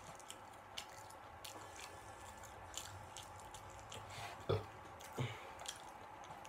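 A person chewing Chinese takeout food with soft, wet mouth clicks, and two louder low knocks about four and a half and five seconds in.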